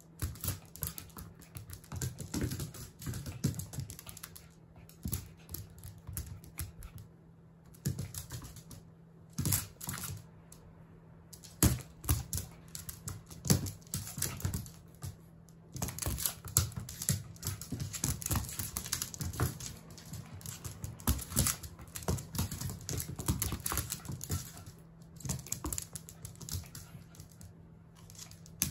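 A Jack Russell Terrier puppy's claws and paws clicking and skittering on a hardwood floor as it scrambles and pounces, in quick irregular flurries with short pauses between.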